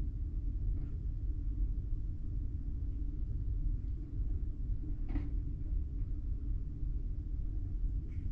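Steady low rumble of a cruise ship's machinery heard inside a cabin, with a few faint short clicks about a second in, near the middle and near the end.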